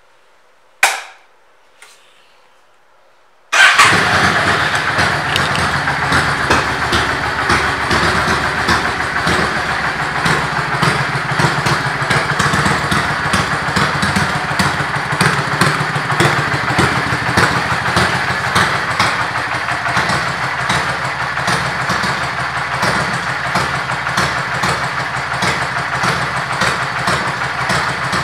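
A 2005 Yamaha V Star Custom's V-twin engine, with aftermarket exhaust pipes, starts suddenly about three and a half seconds in and settles into a steady idle. Just before that there is a single sharp knock about a second in.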